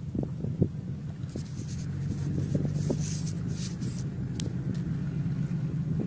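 A vehicle engine running steadily at low speed, with scattered rattles and knocks.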